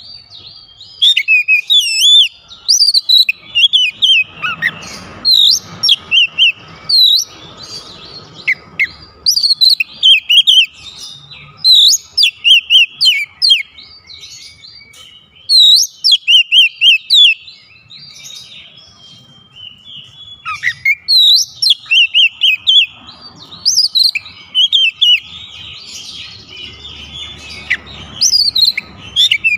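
Oriental magpie-robin (kacer) singing: repeated bursts of loud, rapid, high-pitched chirps and whistles, often the same sharp note several times in a row, with short pauses between phrases.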